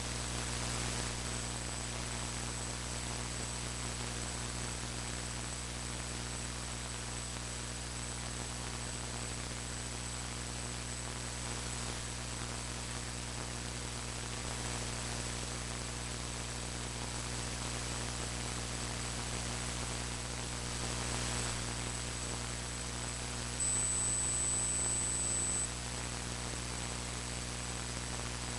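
Steady electrical mains hum with hiss and a thin high whine, the recording fault the uploader warns about. The whine grows louder for about two seconds near the end.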